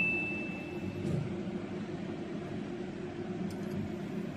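Steady low machine hum, with the ringing tail of a single bell-like ding dying away in the first second.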